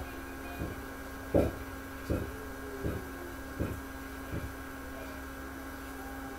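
Steady electrical mains hum, with a series of dull thumps about three-quarters of a second apart that grow fainter and stop about four and a half seconds in.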